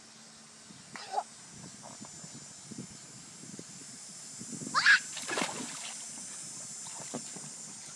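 A child jumps into a backyard inflatable paddling pool about five seconds in: a short high cry, then a splash and the water sloshing for about a second.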